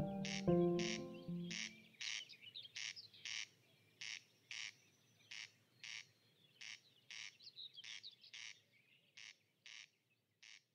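Corncrake calling its double 'crex-crex', the rasping pair repeated over and over about every second and a half, with faint higher bird twittering beneath. Background music ends about two seconds in.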